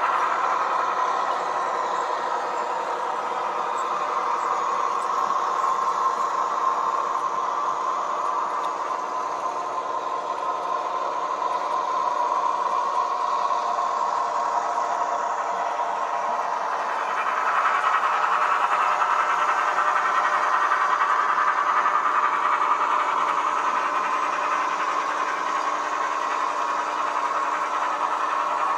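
H0e model locomotive (a 2095) running with a train of freight wagons: a steady engine-like hum made of many even tones, which gets louder about 17 seconds in.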